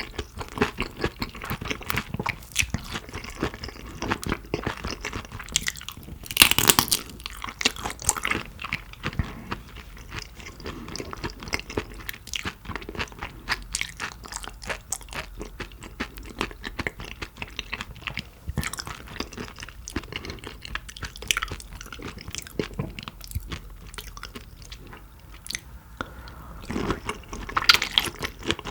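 Close-miked chewing and biting of shrimp: a dense run of wet, crisp mouth clicks and crunches, with a louder crunch about six and a half seconds in.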